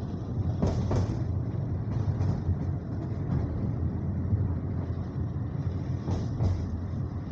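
Passenger train running at speed, heard from on board: a steady low rumble of wheels on rail, with a double clack of wheels over a rail joint about a second in and another near the end.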